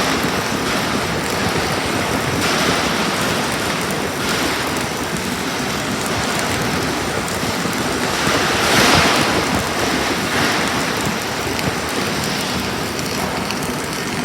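Self-shielded flux-cored arc welding with Lincoln Innershield NR305 5/64-inch wire: the arc's steady, dense crackling sizzle, swelling briefly about nine seconds in.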